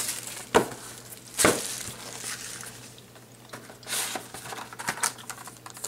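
Clear plastic shrink wrap crinkling in the hands and a cardboard trading-card box being handled and opened, with two sharp clicks in the first second and a half and a burst of rustling about four seconds in.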